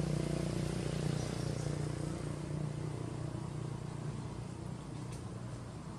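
Steady low hum of a motor vehicle's engine, fading gradually over the first few seconds.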